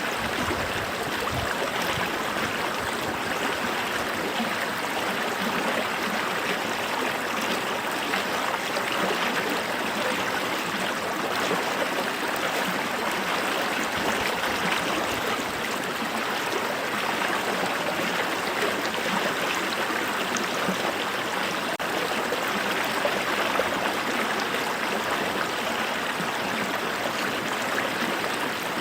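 Creek water running over rocks, a steady babbling rush.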